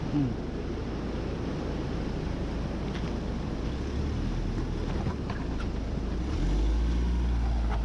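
Mahindra Scorpio S11's diesel engine working at low speed while the SUV is manoeuvred, its revs rising about four seconds in and more strongly about six seconds in, with wind noise on the microphone.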